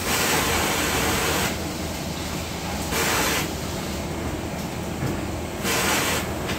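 Factory floor noise: a steady low machinery hum with three loud hissing bursts, the first about a second and a half long at the start, a short one about three seconds in, and another near the end.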